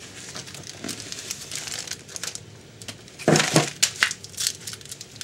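Plastic wrapper of a hockey card pack crinkling as cards are handled, in a run of rustles with a louder burst of crinkling a little past halfway.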